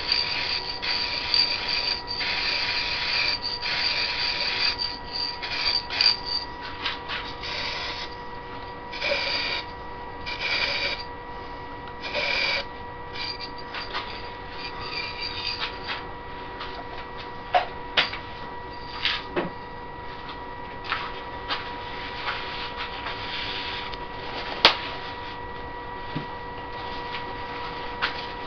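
Aerosol acrylic sanding sealer sprayed onto a wooden vase turning on a lathe: a long spray at first, then several shorter bursts, over a steady whine from the lathe. After about sixteen seconds the spraying stops, and a paper towel rubs the wet sealer into the spinning wood, with a few sharp clicks.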